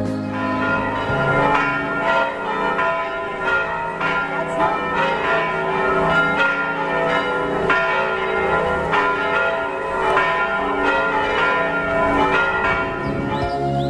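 Church bells of Sant'Agnese in Agone ringing from the bell tower: a swinging bell peal, with strike after strike overlapping as the notes keep sounding.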